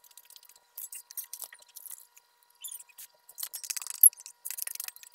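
Metal forks scraping and clicking against a plate and a stainless steel bowl as steamed fish is flaked apart. The clicks grow busier in the second half, with one sharp clink about four seconds in.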